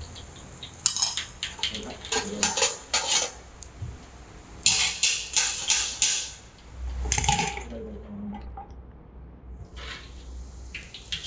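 Pots, pans and cutlery clattering in several bursts of sharp knocks and scrapes as kitchen cookware is cleared away.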